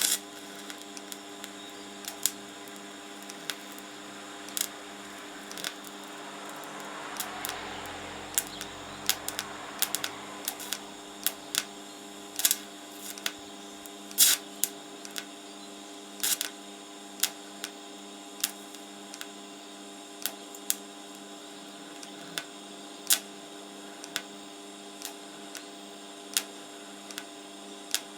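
R-Tech 160 TIG welder humming steadily while pulse-welding a rusty steel fuel tank, with sharp irregular clicks every second or so.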